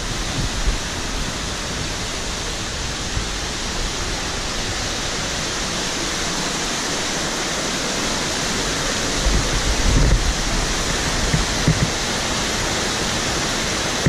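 River water rushing over rock ledges at the top of a waterfall: a steady, even rush. A few low thumps sound on the microphone about ten seconds in.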